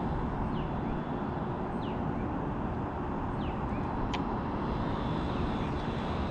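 Wind buffeting an outdoor microphone: a steady, rumbling noise with no gaps. Faint short high chirps come every second or two, and a single sharp click sounds about four seconds in.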